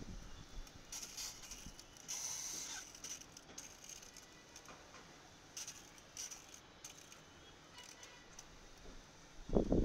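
Water poured onto freshly potted soil in a container, heard as short spells of splashing hiss that come and go.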